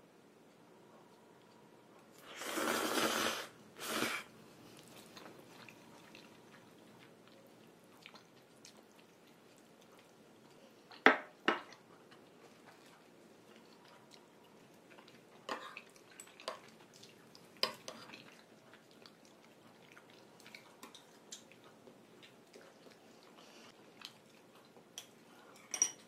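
Cutlery clinking and tapping against plates while eating, as a few sharp clicks scattered through, the loudest two close together about eleven seconds in. Two short noisy bursts near the start, the first about a second long and a shorter one just after.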